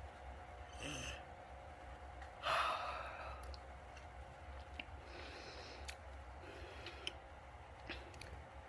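A person yawning: a loud breathy exhale about two and a half seconds in, with softer breaths before and after it.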